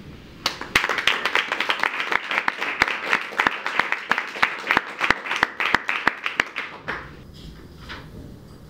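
Audience applauding, starting suddenly about half a second in and dying away a little before the end.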